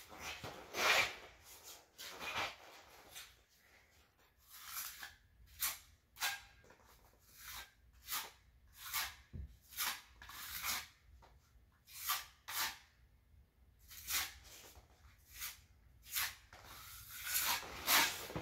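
Small steel trowel scraping cement-based repair mortar into nail divots in a concrete floor and smoothing it flat. Irregular short scrapes, about one or two a second, the loudest near the start and near the end.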